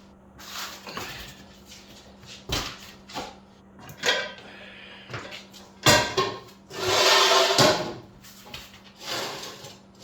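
A jack being set in place under a motorcycle: a series of knocks and clatters with short scrapes. The sharpest knock comes about six seconds in, followed by a longer scrape lasting about a second.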